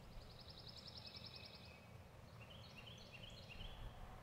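Faint songbird calls: a rapid high trill lasting about a second and a half, then short runs of stepped high notes about halfway through, over a low steady outdoor rumble.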